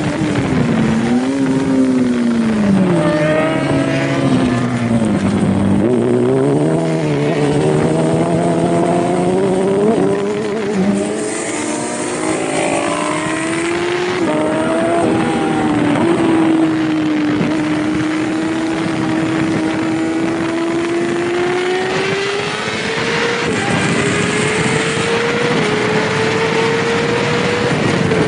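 Yamaha R6 600cc inline-four race bike engine, with a steady rush of wind. The revs drop steeply over the first few seconds and stay low, then climb again with several small steps and a long, steady rise toward the end.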